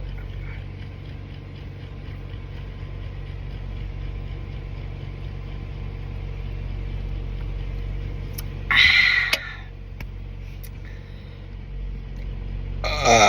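A person's loud burp lasting just under a second, about nine seconds in, and the start of another burp near the end, over a steady low background rumble.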